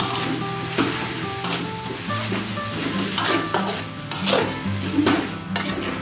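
Metal spatula scraping and tossing glass noodles and vegetables around a sizzling steel wok, in repeated strokes about one or two a second.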